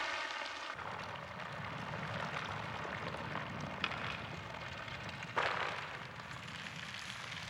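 Added sound effects: a low rumble with a hissing crackle, a sharp click about four seconds in, and a sudden whooshing burst about five and a half seconds in that fades away.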